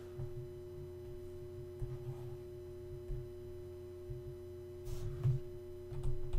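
A steady electrical-sounding hum holding one tone over a low rumble, with a couple of faint brief knocks about five seconds in.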